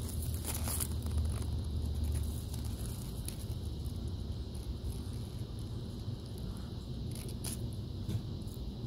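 A few crackles of dry leaves and mulch under a red-footed tortoise's feet as it steps through leaf litter, the sharpest about half a second in and again about seven and a half seconds in, over a steady low rumble.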